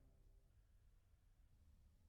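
Near silence: faint low background noise just after the music ends.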